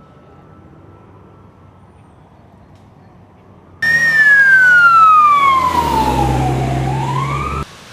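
Emergency vehicle siren wailing loud and close, its pitch sliding steadily down and then back up, over a vehicle engine's low drone. It starts suddenly about four seconds in, after a faint, distant siren tone, and cuts off abruptly near the end.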